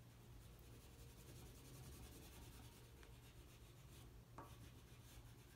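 Faint scratchy rubbing of an oil pastel stick coloring across paper, with a light click about four seconds in.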